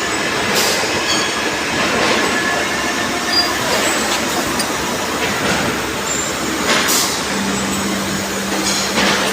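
Industrial machinery running with a dense, steady rattling noise, broken by a few sharp knocks, and a low steady hum that comes in about seven seconds in.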